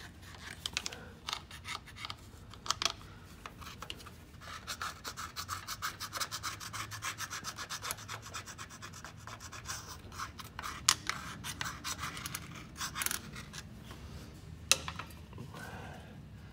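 Gasket scraper scraping old glue off the truck's power divider input housing around the seal bore, in many quick short strokes, with a few sharp metallic clicks.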